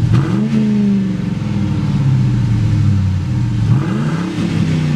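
1998 Ford Mustang GT's 4.6-litre V8, warm at operating temperature, heard from its exhaust tailpipe. It settles back from a rev at the start, idles steadily, and is revved briefly once more about four seconds in.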